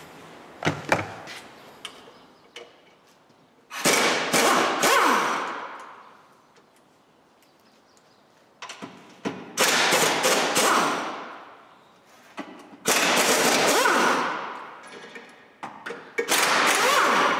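Impact wrench hammering in four bursts of about two seconds each, each begun with a quick tap or two of the trigger, undoing bolts under the car's front end.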